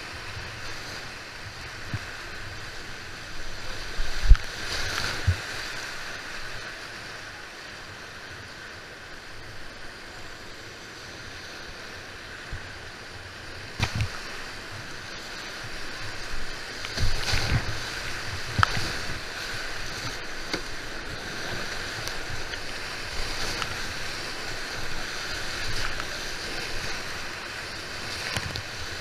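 Whitewater rapid of the Guisane river at about 16.5 cubic metres per second, rushing steadily around a kayak, with sudden louder splashes as water breaks over the boat and camera, the biggest about four seconds in and again around 17 to 18 seconds in.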